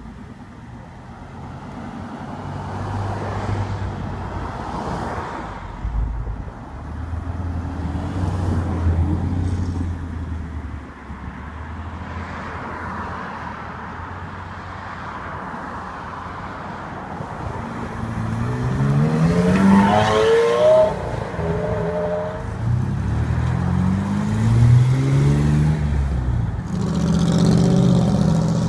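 Supercar engines pulling away one after another. The first half is a steady low engine note; about two-thirds of the way in an engine revs hard with rising pitch, and another does the same shortly after.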